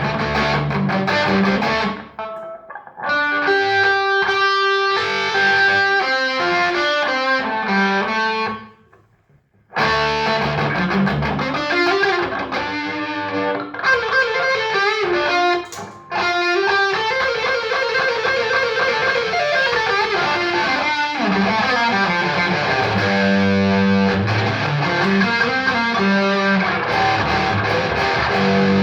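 Distorted electric guitar, a double-humbucker guitar played straight through a Trace Elliot Trident valve combo amp with 6L6 power valves, with no pedals. Chords and single-note lines with slides and held notes, broken off briefly about nine seconds in.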